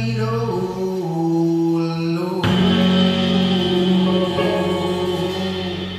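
Live rock band music: electric guitar, bass and drums, with a singer holding long notes. A full chord is struck about two and a half seconds in and held.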